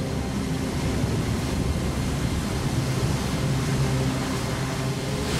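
Steady low rumble of storm and rough water, a cartoon sound effect, with a low droning tone underneath.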